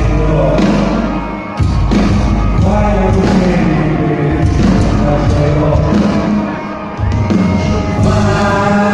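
A band playing live through a large concert sound system, loud with heavy bass. The music drops back briefly twice, about a second and a half in and near the end, each time coming back in hard.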